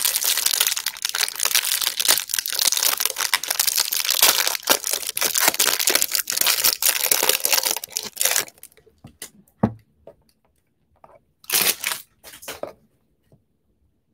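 Clear plastic wrap crinkling and tearing as it is pulled off a stack of trading cards, dense and continuous for about eight seconds, then a few short crinkles and a light knock.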